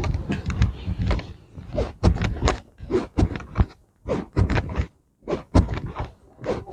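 Irregular clatter of hand tools being picked up and set down: a string of short knocks and clicks with brief gaps, as a screwdriver is sought among tools.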